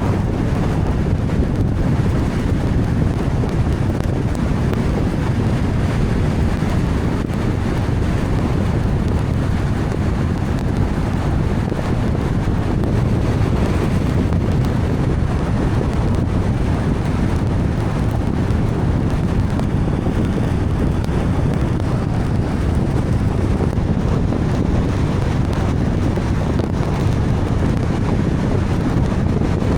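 Steady noise of a car driving through heavy rain: tyres on the wet road and rain on the car, a constant low rumble with hiss that neither rises nor falls.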